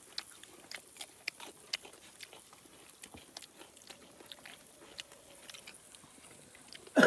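A person chewing grilled pork close to the microphone: soft, irregular mouth clicks and smacks. A voice breaks in loudly right at the end.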